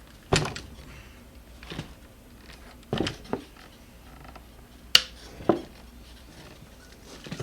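A heavy electric scooter being lifted and set down on a work table: about six separate knocks and clunks, with a sharp click about five seconds in.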